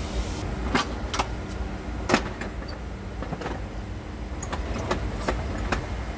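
A series of sharp metallic clanks and knocks, about seven spread irregularly, the loudest about two seconds in, from tools and parts being handled during work on a truck's clutch. A steady low rumble runs underneath.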